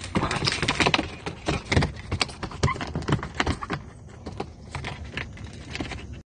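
Metal wire door of a plastic pet carrier rattling and clanking as it is handled and opened, with a quick run of knocks against the crate, busiest in the first two seconds.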